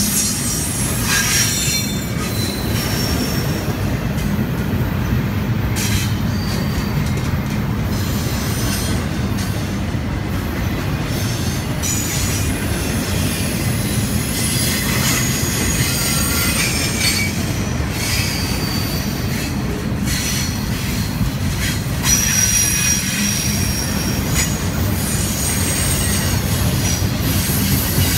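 Double-stack intermodal freight train's container well cars rolling past: a steady low rumble of steel wheels on rail, with thin high-pitched wheel squeals that come and go.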